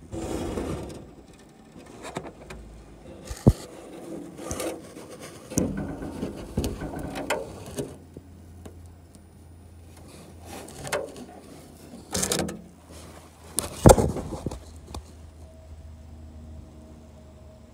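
Irregular knocks, taps and scraping rustles, the loudest a sharp knock about fourteen seconds in, typical of a camera being handled and bumped inside an aluminium aircraft wing. A low steady hum comes in about eight seconds in.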